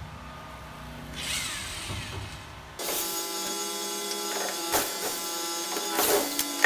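A handheld electric power tool's motor starts about three seconds in and runs at a steady, unchanging whine, with a few sharp clicks over it.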